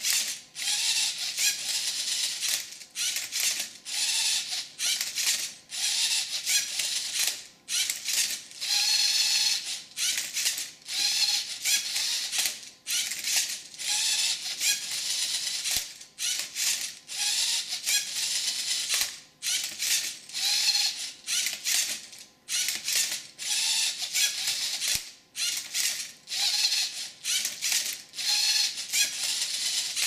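LEGO Mindstorms NXT MindCuber robot's servo motors and plastic gears whirring and rattling in repeated short bursts, each a second or so long with brief pauses between, as it turns and tilts a Rubik's cube through its solving moves.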